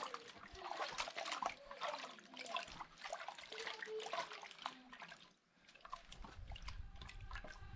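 Hands swishing cleaned fish around in a pot of water: irregular splashing and dripping, with a brief lull about five and a half seconds in.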